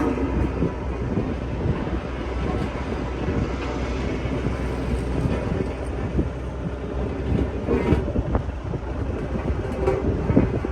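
Sakai road roller's diesel engine running with a steady low rumble, with scattered clanks and rattles of the machine.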